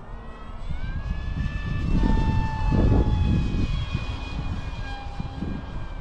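Small brushless outboard motor (2205, 2300KV) spinning a 3-blade propeller on an RC flying wing in flight, a high whine. The pitch climbs about a second in, then slowly drifts lower.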